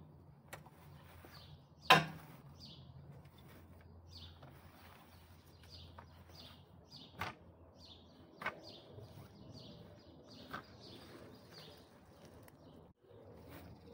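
Garden rake knocking and scraping through grass, with one sharp knock about two seconds in and a few lighter knocks later. A bird chirps repeatedly in the background.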